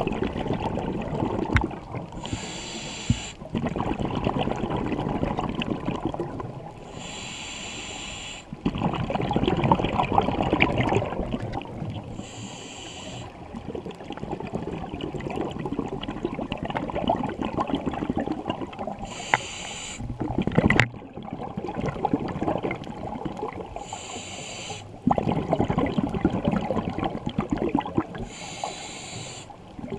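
Scuba diver breathing through a regulator underwater: a short hissing inhale about every five seconds, each followed by a longer rumbling, bubbling exhale.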